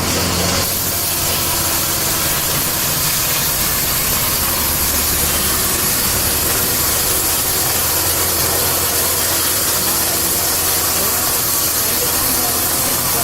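Powered wood saw running steadily: a low engine hum under a loud, high hiss that sets in about half a second in and holds.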